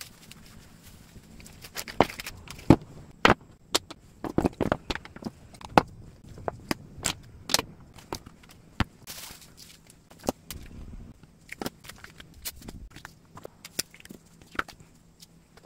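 Packing supplies being laid out on a desk one by one: irregular taps and knocks as a flat cardboard box, a roll of packing tape and plastic bags are set down, with short rustles of plastic and paper.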